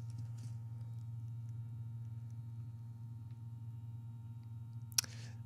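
Steady low electrical hum with a few faint high steady tones over it, and a single sharp click about five seconds in.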